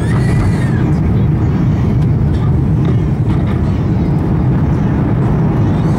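Steady low cabin roar inside an Airbus A350-900 on approach: airflow and its two Rolls-Royce Trent XWB engines heard from a seat by the wing.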